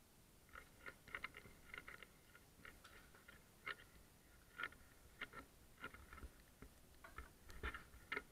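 Faint footsteps crunching on grit and rubble, a short crunch roughly every half second at walking pace, with a few louder crunches near the end.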